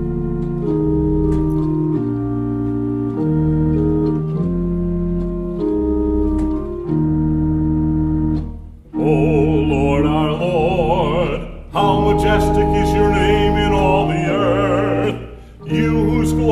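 Pipe organ playing a slow run of held chords, changing about every second, as the introduction to a psalm setting. From about nine seconds a man's voice sings the psalm with vibrato over the organ, breaking briefly twice between phrases.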